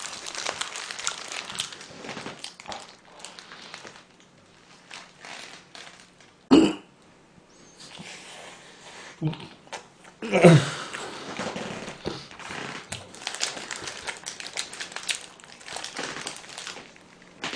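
Close-miked eating sounds: a cheese-filled mozzarella burger being handled, torn and bitten, with crinkling and small wet crackles of chewing. Two short vocal sounds break in, about six seconds in and again about ten seconds in.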